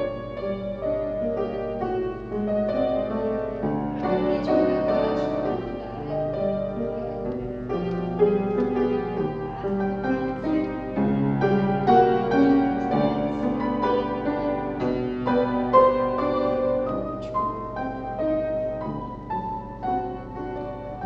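Solo piano playing a steady, classical-style accompaniment for a ballet barre exercise, a continuous flow of notes and chords.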